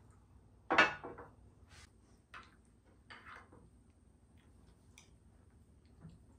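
Dishes set down on a glass coffee table, one loud clunk about a second in, then a few soft clinks and scrapes of a metal spoon in a ceramic bowl.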